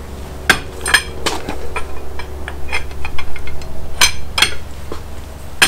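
Sharp metallic clanks and clinks of a wrench and socket on the wheel nuts of a Unimog truck's front wheel, each with a short ringing tail. A few come in quick succession near the start and more around four seconds in.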